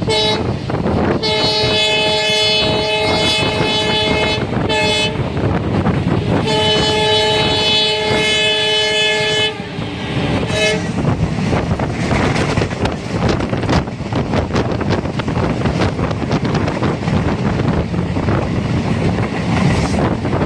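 Train horn sounding in two long blasts of about three seconds each, with short toots between and after them, over the rumble of a moving train. For the rest, the train runs on, its wheels clicking over the rail joints, heard from aboard.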